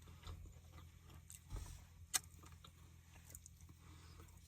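Faint chewing and mouth clicks of someone eating a soft tamale, a few small sharp clicks scattered through, over a steady low hum.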